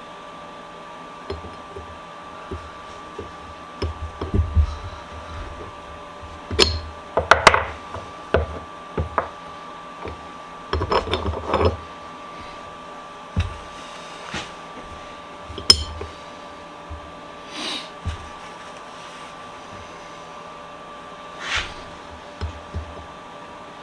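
Bench vise parts being handled and fitted together on a workbench: scattered knocks, clinks and rubbing at irregular intervals, bunched in short flurries.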